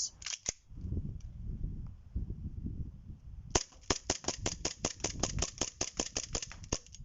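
WE M1911 gas blowback airsoft pistol fired semi-automatically as fast as possible. It makes a rapid string of sharp cracks, about five or six a second, starting about three and a half seconds in.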